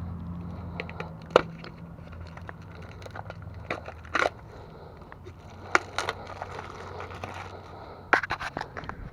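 Scattered sharp clicks, knocks and light scrapes of hands handling parts around the oil filter under a pickup truck, over a faint low hum.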